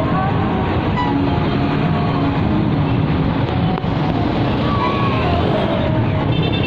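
Steady rumble of road noise and engines heard from a moving vehicle in heavy traffic, with wind rushing over the microphone.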